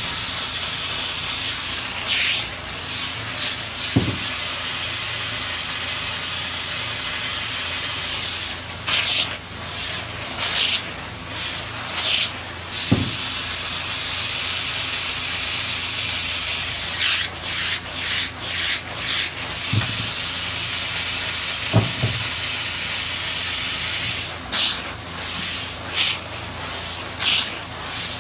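A steady hiss under repeated short, sharp rubbing strokes in quick groups of two to five, as a fur coat is handled and rubbed by hand.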